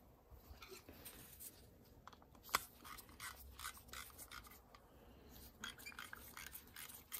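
Faint scratching and light clicks of a small metal carburetor being handled and a screwdriver fitted to its mixture needle screw, with one sharper click about two and a half seconds in.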